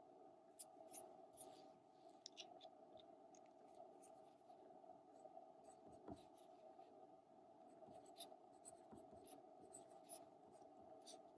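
Near silence: faint, irregularly spaced clicks over a low steady hum.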